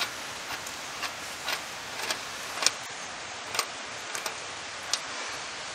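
Light irregular clicks, about one every half second to second, as a trailer axle spindle nut is turned by hand onto the threaded spindle over the washer.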